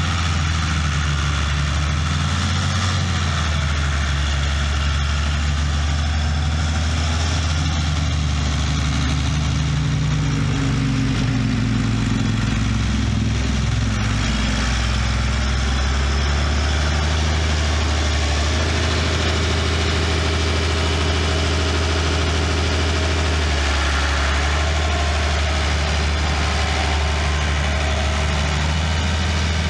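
Perkins 5.8-litre six-cylinder diesel engine of a 1979 Massey-Ferguson 2675 tractor idling steadily. Its note wavers briefly about halfway through.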